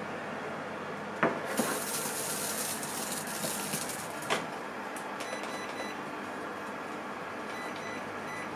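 Toshiba microwave oven being loaded and set: a small pot knocks onto the oven floor, the door swings shut and latches with a click, then the control panel gives a run of short beeps as the time buttons are pressed.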